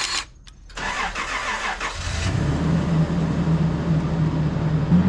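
A pickup truck's engine being started: about a second of starter cranking, then it catches about two seconds in and idles steadily.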